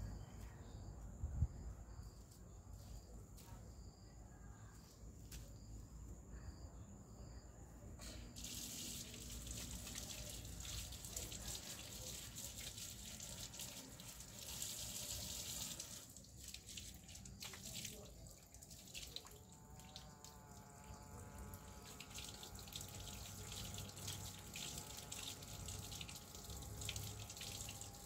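A single sharp knock about a second in, then water running from a tap and splashing, starting about eight seconds in and going on steadily.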